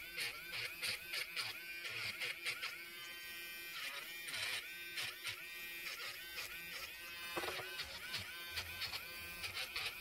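Small electric nail drill with a sanding band bit running and grinding a fingernail, its whine bending in pitch with repeated short strokes against the nail. Background music plays along with it.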